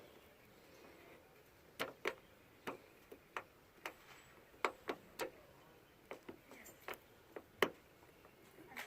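Sharp, separate clicks at an uneven one to two a second from a driver turning the screw that fastens a minivan's sliding-door handle, as the screw is tightened.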